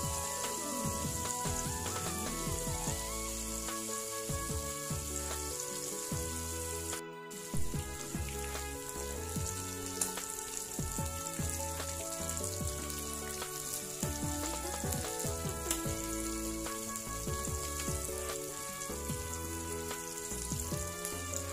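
Fish and tempeh sizzling in hot oil in a wok, a steady crackling hiss, with occasional scrapes and taps of a wooden spatula turning the pieces. Soft background music plays underneath, and the sound cuts out briefly about seven seconds in.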